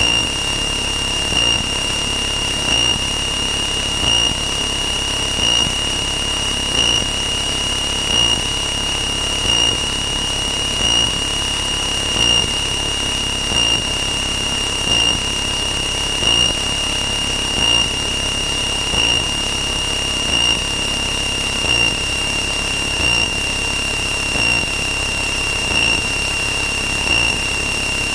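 Drone of the Cessna 162 Skycatcher's engine and propeller, heard inside the cockpit. Over it, a steady high-pitched tone swells about every second and a half.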